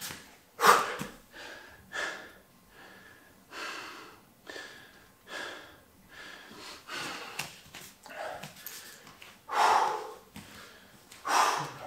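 A man breathing hard to recover from exertion: deep, noisy breaths roughly once a second, with two louder exhales near the end.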